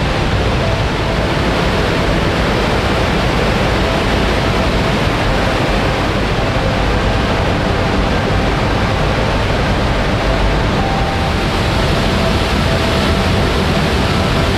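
Upper Latourell Falls plunging into its pool, with Latourell Creek rushing over rocks below it: a loud, steady rush of falling and running water.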